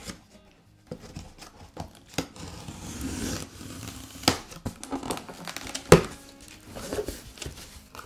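A knife blade slitting the packing tape on a cardboard box, then the cardboard flaps being pulled open, with scraping, tearing and sharp snaps of cardboard; the loudest snap comes about six seconds in.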